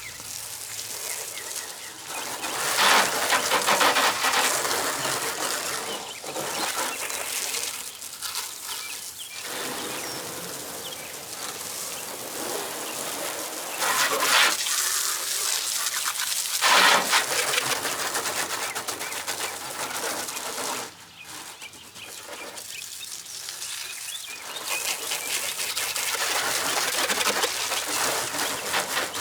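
Hose-end foam sprayer on a garden hose spraying soapy water onto a car's body, a steady hiss of spray that swells and drops as the stream is moved, with several louder surges.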